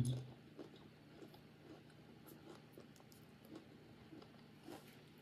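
Faint chewing of a mouthful of fresh pineapple: a scatter of small, irregular mouth clicks.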